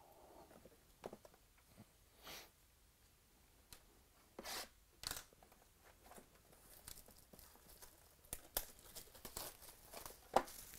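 Packaging on a sealed box of trading cards being torn open by hand: a few short rips, then a run of crinkling and crackling ending in a sharp snap near the end.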